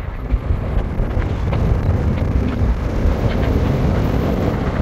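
Steady roar of a fast-flowing river, loudest in the low rumble, with a few faint clicks over it.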